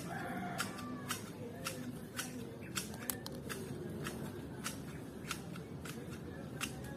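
Repeated sharp clicks of a hand tool cutting through plant stems during yard clearing, coming irregularly at about two a second.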